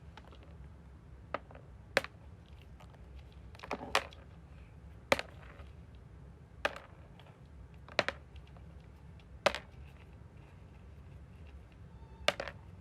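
A series of sharp taps or knocks, about nine in all, roughly one every second or so, a few coming as quick doubles, over a low steady hum.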